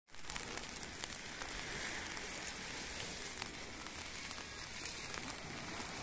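Steady rain falling: an even hiss with scattered sharp ticks of individual drops.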